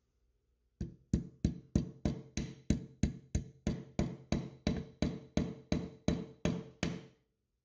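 Small nylon-faced mallet tapping the magazine catch pin into an SMLE Mk III* rifle's action: about eighteen evenly spaced taps, a little under three a second, each with a short metallic ring. They start just under a second in and stop about a second before the end.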